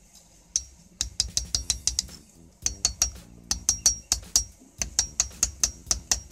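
Small hammer tapping a lead sinker against a stone to crimp it shut around a fishing net's rope: quick sharp taps, several a second, in runs with brief pauses, each tap giving a short bright ring.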